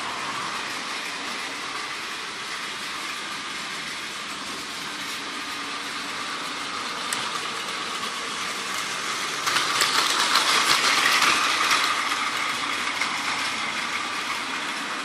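Plarail battery-powered toy train running fast on blue plastic track: a steady whir of its motor drive unit with the rattle of its wheels on the plastic rails, growing louder for a couple of seconds around the middle.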